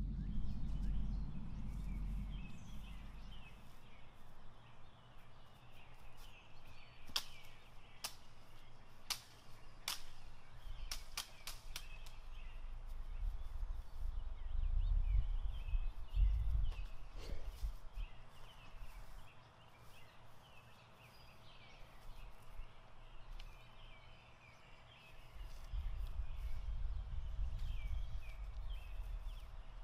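Backyard outdoor ambience: birds chirping off and on, a low rumble that comes and goes, and a run of sharp clicks roughly a quarter to a third of the way in.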